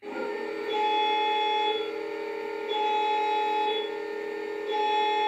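ESU LokSound XL sound decoder in a G scale SD70MAC model playing the locomotive's engine start-up sequence through its tank subwoofer and hood speakers. It makes a steady electrical hum of held tones, with a higher beeping tone that comes on for about a second every two seconds.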